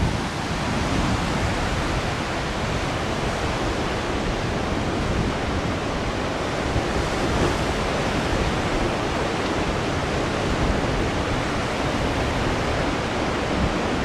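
Heavy surf breaking on a rocky shore, a steady rushing wash of waves.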